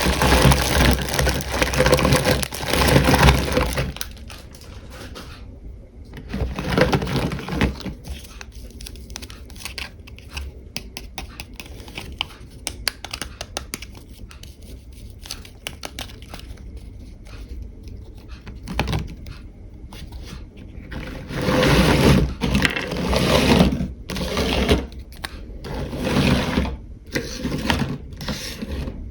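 Close handling noises: crinkling, scraping and small clicks of plastic packaging and small toy pieces. It is louder at the start and again near the end, and quieter in between, where many small clicks come.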